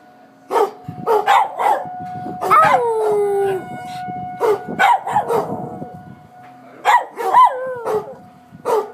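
A dog barks a volley of short barks with two drawn-out howling calls that slide down in pitch, set off by outdoor tornado sirens. A steady siren tone holds underneath through much of it.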